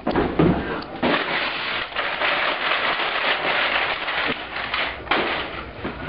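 Packaging being handled and crinkled, a dense run of crackling that starts with a knock and continues with many small clicks for about four seconds.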